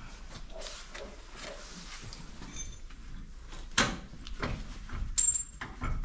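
Metal clinks and scraping as a steel pin is worked out of an Ursus tractor's rear three-point lift linkage, with a sharp metallic knock about four seconds in and a brief high ring soon after.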